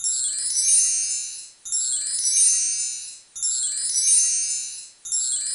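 Bright, high chime-like music, a short shimmering phrase that repeats about every second and a half. It starts abruptly out of silence.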